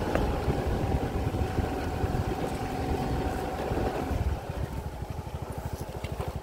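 A small engine running: a steady hum with a held tone, which gives way about four seconds in to a slower, evenly pulsing idle.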